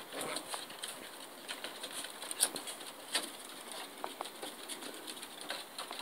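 Havanese puppies' paws and claws on a wooden deck: soft, scattered light clicks and taps.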